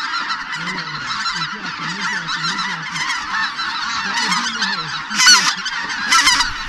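A large flock of wild geese calling over a decoy spread, a dense, continuous clamour of overlapping honks and yelps, with a few louder calls from closer birds about five and six seconds in.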